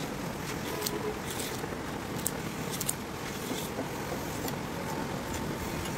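A hand knife slicing through truck-tyre rubber: a handful of short scratchy strokes at uneven intervals over a steady background rumble.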